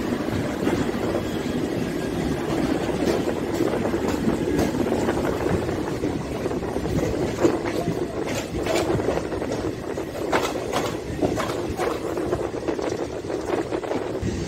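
A passing express train's LHB passenger coaches rumble steadily by on the adjacent track. In the second half, sharp clicks of wheels over rail joints come through.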